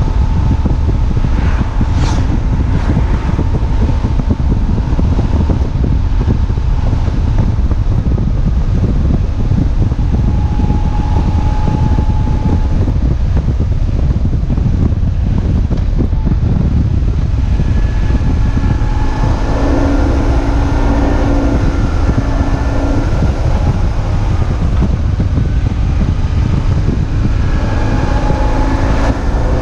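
BMW R1150GS flat-twin boxer engine running at road speed under heavy wind buffeting on the microphone. The engine's pitched note comes through more clearly about two-thirds of the way in and again near the end.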